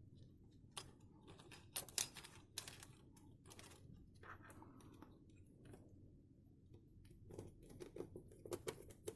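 Faint, scattered clicks and taps of small metal contacts and plastic parts of a cheap power strip being handled and pressed into place. The clicks come more often, several a second, in the last couple of seconds.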